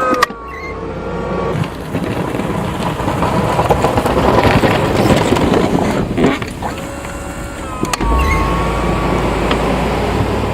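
A motor vehicle passing by: its noise swells to a peak about midway, then eases off, leaving a steady low rumble in the last couple of seconds.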